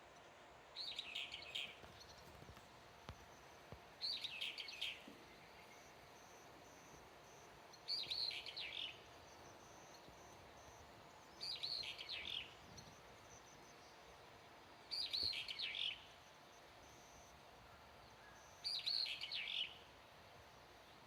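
An unidentified wild bird calling one short phrase of about a second, repeated six times at even gaps of about three and a half seconds.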